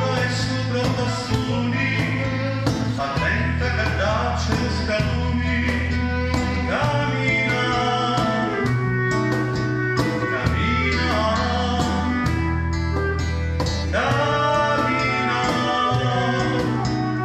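A man sings a Sicilian folk song with a small live acoustic ensemble: a steady cajón beat, a bowed violin, and held bass notes that change every couple of seconds.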